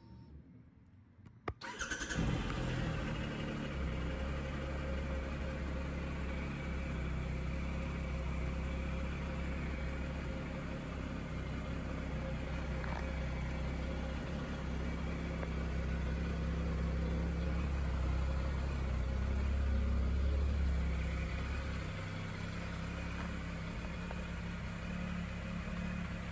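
Triumph Tiger 1200's 1215cc three-cylinder engine, with an Arrow exhaust, starting up about a second and a half in and then running at a steady idle, swelling slightly near the middle before settling again.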